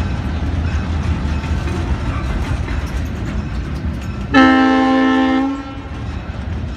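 Freight train cars rolling past with a steady low rumble. About four seconds in, the diesel locomotive sounds one loud horn blast lasting just over a second.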